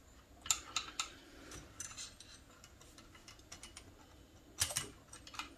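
Faint, irregular metallic clicks and taps of small steel rifle parts being handled as a Rossi 92 lever-action's hammer is fitted into its lower tang, with a louder pair of clicks near the end.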